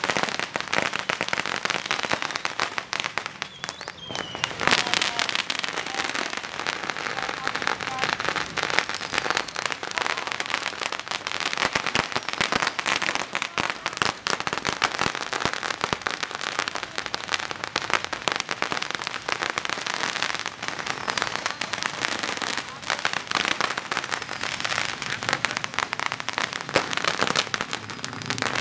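Strings of firecrackers going off nonstop, a dense rapid crackle of sharp bangs.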